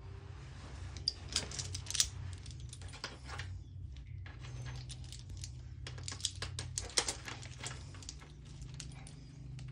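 Irregular metal clicks and clinks as a copper-pipe flaring block is handled and clamped onto the end of an air-conditioner copper pipe fitted with a brass flare nut, with a low steady hum underneath.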